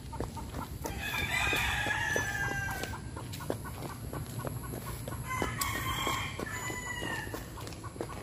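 A rooster crowing twice, each crow about two seconds long, the second starting about five seconds in.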